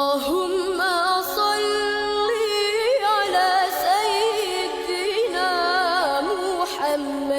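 Music: a high voice singing a slow, ornamented melody with wavering, sliding notes over a steady held lower note.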